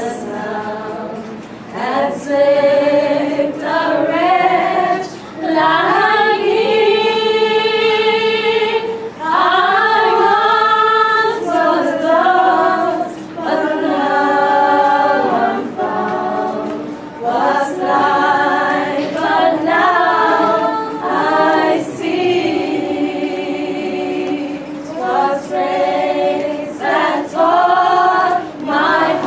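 A group of women singing together without instruments, in long held notes that slide from one pitch to the next.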